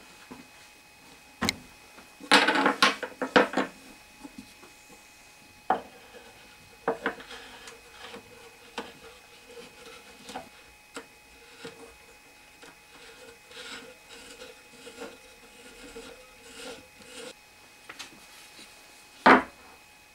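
Hand assembly of a threaded-rod jig: a brief clatter of small metal parts set on a laminated board a couple of seconds in, then scattered knocks and a faint steady rubbing as nuts and washers are worked onto the steel threaded rods. One sharp knock near the end as a wooden rail is laid on the base.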